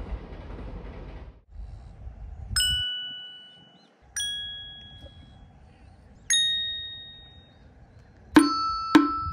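Three ringing chime 'ding' sound effects, each a little higher in pitch than the last and each fading away over about a second, followed near the end by three quick struck notes in a row.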